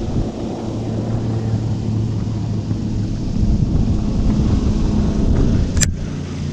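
Boat engine running with a steady low hum under wind rumbling on the microphone, and one sharp click near the end.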